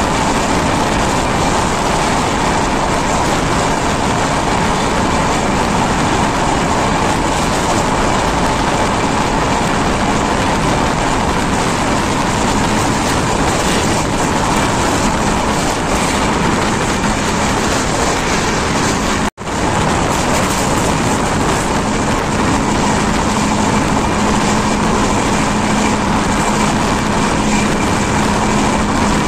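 Steady, loud running noise of the West Bengal Sampark Kranti Superfast Express at speed, heard from an open window of one of its coaches. The sound cuts out for an instant about two-thirds of the way through.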